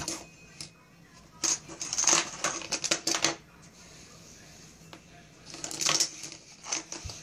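Eyeglasses clattering and skidding on a desktop as a kitten bats them around: two bouts of quick rattling clicks, the first about a second and a half in and the second near the end.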